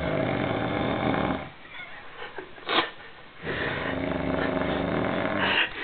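A man snoring in his sleep: two long snores of about two seconds each, with a short, sharp sound between them.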